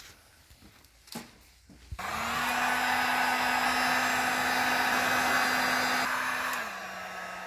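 Handheld hot-air heat gun switched on about two seconds in, its fan running with a steady hum and a rush of air while it heats the end of a clear plastic hose to soften and stretch it. Near the end the hum drops to a lower pitch and the blower winds down.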